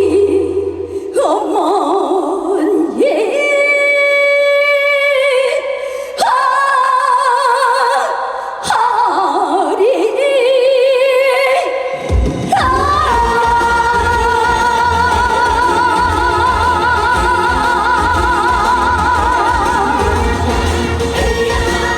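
Live trot singing: a woman's voice with wide vibrato, at first over sparse accompaniment. About twelve seconds in, the full band comes in with a steady low beat while she holds a long note.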